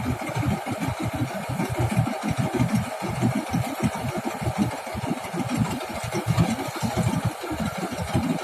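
Rice combine harvester's engine running continuously, with a low, uneven throbbing pulse.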